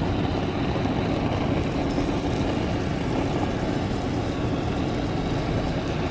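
Hand-held LPG blowtorch flame burning with a steady rushing noise, over butter sizzling on a hot iron griddle.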